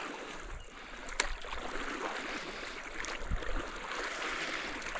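River water rippling and splashing around a small craft being poled upstream with a stick, with a sharp knock about a second in and a dull low thud a little after three seconds.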